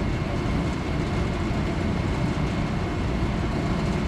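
Steady low rumble of the crane truck's engine running while it holds a condensing unit on the hook, with no break or change in pitch.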